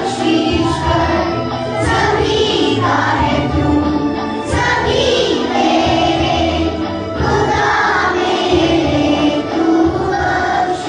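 Choir of schoolgirls singing a song together.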